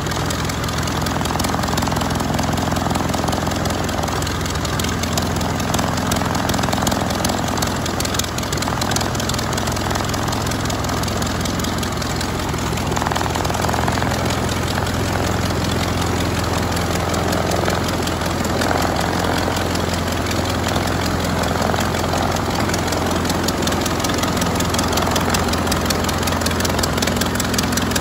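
Curtiss OX-5 water-cooled V8 aero engine of a 1928 Command-Aire biplane running steadily on the ground, its propeller turning.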